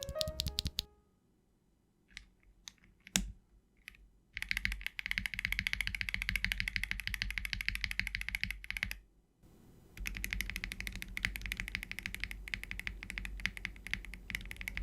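Mechanical keyboard fitted with KiiBoom Matcha Latte linear switches being typed on: a few separate keystrokes, then fast continuous typing, a pause of about a second around nine seconds in, and another long run of fast typing.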